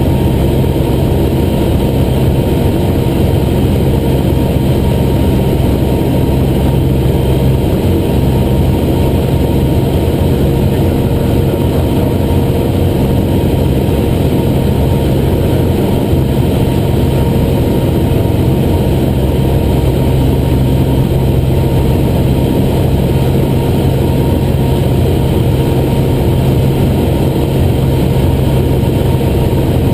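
Cessna 175's piston engine and propeller running steadily in flight, heard from inside the cockpit as a loud, even drone with no change in pitch.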